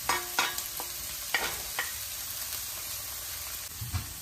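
Chopped onions, green chillies and ginger-garlic paste sizzling in hot oil in a pan. In the first two seconds a serving spoon knocks the paste off against the pan several times with sharp clicks. Near the end a wooden spoon starts stirring with a few low knocks.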